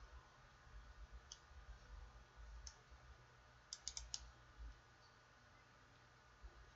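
Faint clicks from working a computer against quiet room tone: a few single clicks, then a quick run of about four close together around four seconds in.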